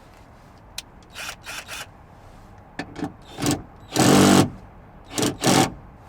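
Cordless drill-driver run in a string of short trigger bursts while undoing fasteners inside a car door, the longest and loudest burst about two thirds of the way through.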